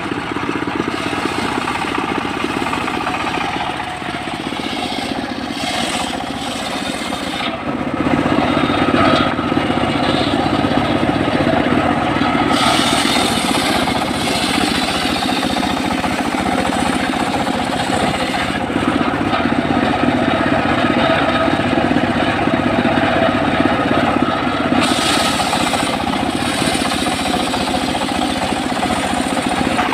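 Homemade engine-driven circular sawmill running, its blade ripping lengthwise through a log. The steady machine noise gets louder about eight seconds in, with a higher sawing hiss coming and going.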